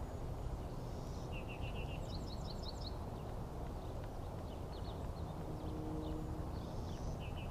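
A songbird singing one phrase: a quick string of repeated notes, then a string of quick, higher, down-slurred notes, about a second and a half in all, with the same phrase starting again near the end. A steady low rumble lies underneath.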